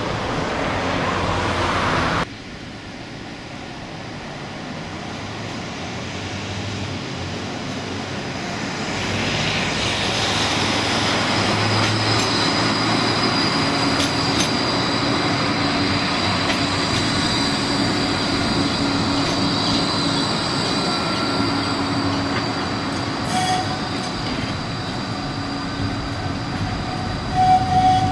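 Gold Coast G:link light-rail tram (Bombardier Flexity 2) running along its track, its rolling noise growing louder as it draws near and passes close by, with a steady high-pitched whine held over it.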